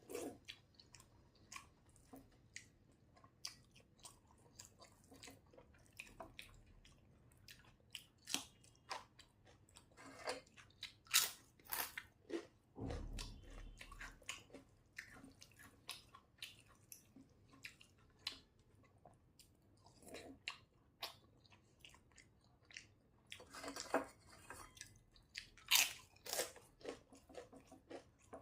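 Close-miked eating: irregular chewing and biting with sharp, crisp crunches, loudest about a third of the way in and near the end, and a dull low bump about halfway through.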